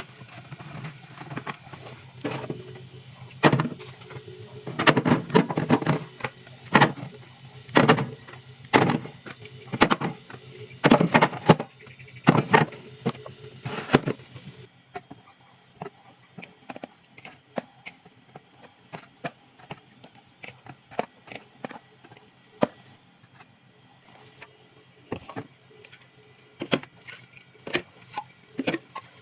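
Items being handled and set down while a mini fridge is restocked: irregular knocks, clicks and clatter, louder and busier for the first half, then lighter, quicker taps and clicks.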